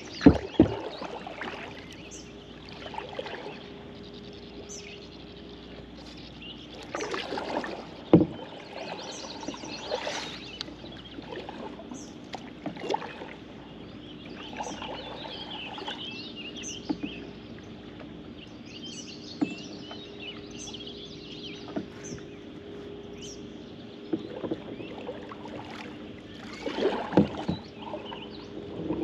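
Kayak paddle strokes splashing and dripping in river water, with a few sharp knocks, and birds chirping. A faint steady hum runs underneath.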